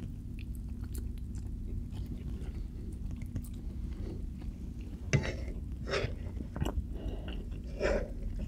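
A person chewing soft, cheesy food close to the microphone: small clicks throughout and a few louder wet mouth sounds in the second half, over a low steady hum.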